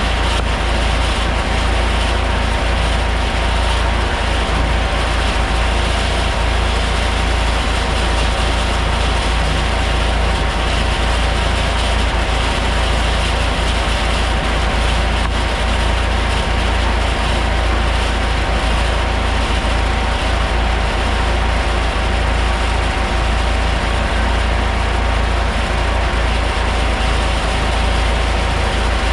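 Vintage tractor belt-driving an antique sawmill, running steadily with a constant hum.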